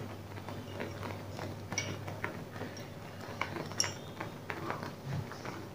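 Faint, scattered light clinks and taps of kitchen handling as roasted nuts are added to a pan of semolina halwa, over a low steady hum.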